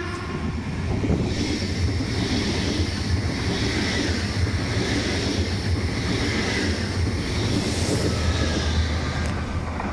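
Deutsche Bahn Intercity 2 double-deck train passing close by at speed: a steady rumble and rush of wheels on rail, with its electric locomotive going past near the end.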